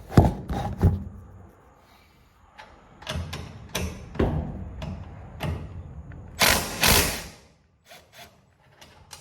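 Metal knocks and clanks of hand work on garage door torsion spring hardware: a quick run of sharp knocks, scattered clicks and knocks, then two louder, longer scraping clanks a little after the middle.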